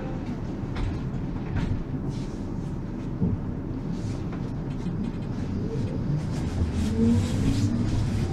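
Electric tram pulling away and picking up speed: a low rumble of the wheels on the rails with a few light knocks, and from about halfway through the whine of the traction motors rising steadily in pitch as it accelerates.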